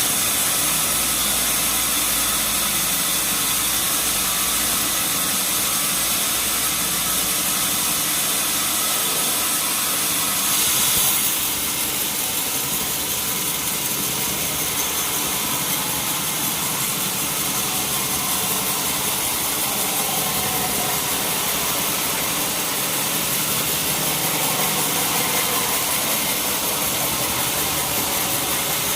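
Sawmill machinery running steadily, with a saw cutting through a log; the sound gets a little louder just before about eleven seconds in, then drops slightly and runs on.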